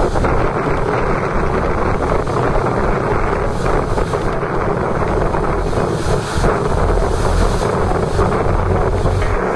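Strong wind buffeting the microphone in a steady, loud rumble, with the rush of breaking surf beneath it.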